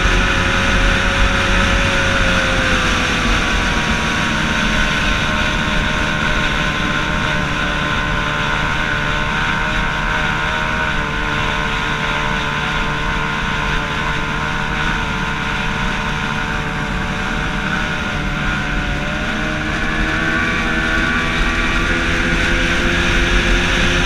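Yamato 102 two-stroke racing outboard on a small hydroplane running at steady speed, its pitch dipping about three seconds in and climbing again near the end, over rushing water.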